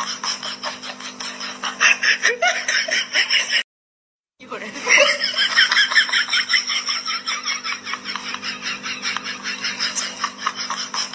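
Rapid, continuous giggling laughter of about seven pulses a second. It breaks off completely for under a second about four seconds in, then starts again.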